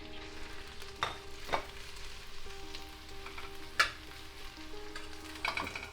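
Whitebait frying in hot vegetable oil, a steady sizzle. A utensil clinks against the pan four times as the fish is stirred.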